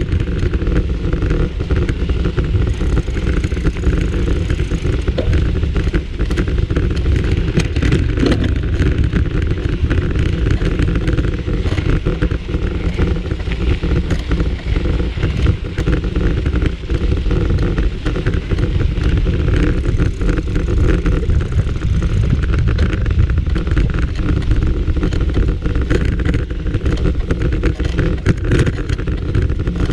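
A mountain bike ridden along a dirt trail, heard from a camera mounted on the bike: a steady rush of wind and rolling rumble, with frequent small knocks and rattles as the bike goes over bumps.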